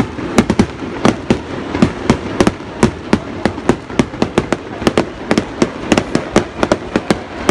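Rapid barrage of aerial firework shells bursting: sharp bangs coming irregularly, two or three a second, over a continuous hiss between them.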